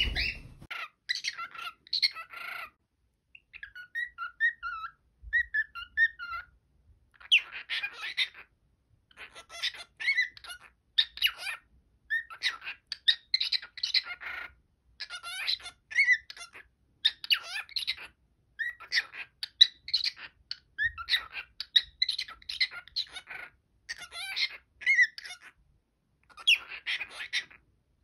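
Cockatiel chattering and warbling in a run of short bursts of chirps and whistles, with brief pauses between them.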